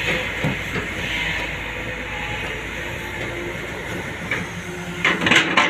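Hyundai long-reach crawler excavator working: its diesel engine and hydraulics run at a steady drone as the boom swings a loaded bucket. A run of sharp clattering knocks comes in near the end.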